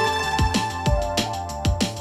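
Background music: an electronic track with sustained notes over a steady drum beat of about two beats a second.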